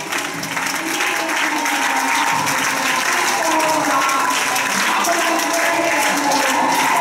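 Audience applauding steadily, with voices mixed in.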